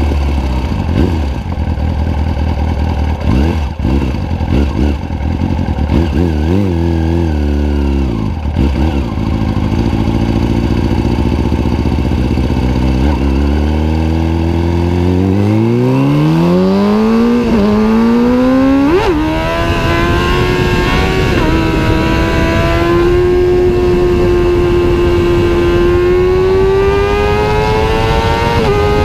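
Kawasaki ZX-6R inline-four through a loud Two Brothers aftermarket exhaust: it runs low with a few short throttle blips, then is revved up steadily about halfway through and held at high revs, the pitch still slowly rising.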